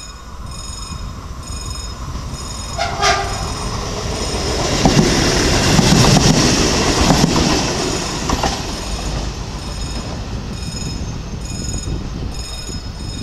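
A CP series 0450 diesel multiple unit passes close by. A short horn blast sounds about three seconds in, and the engine and wheel noise grows to its loudest around six seconds, then fades as the unit moves away.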